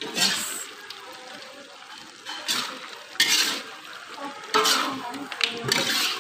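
A long metal spoon stirring and scraping chopped pork around a metal wok, about five scraping strokes, while the meat fries in its rendered fat.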